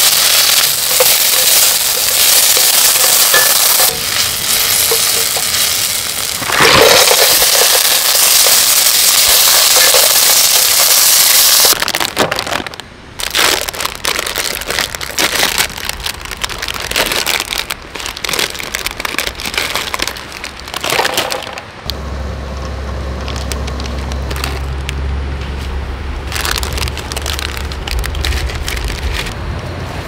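Sliced green onions frying in oil in a stainless steel pot, a loud steady sizzle for about the first twelve seconds. Then plastic instant-ramen packets crinkle and tear as they are opened, with sharp irregular crackles, and from about two-thirds of the way in a steady low rumble runs under lighter rustling.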